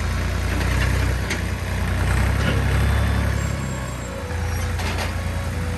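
Massey Ferguson 231 tractor's diesel engine running as the tractor works the yard, the engine note swelling from about two seconds in and easing off near four seconds.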